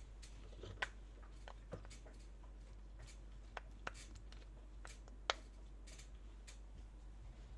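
Small plastic fidget toys being handled, giving scattered light clicks and taps, a few sharper ones, the loudest a little over five seconds in, over a low steady hum.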